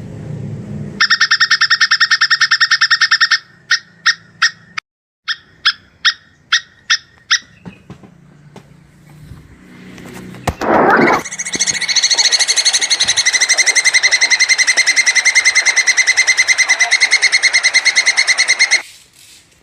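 Plantain squirrel (tupai kelapa) calling, which the uploader labels a mating call: a fast chattering trill lasting about two seconds, then a string of separate sharp chips about two a second. After a pause comes a short rough burst, then a long rapid trill of about seven seconds that cuts off suddenly near the end.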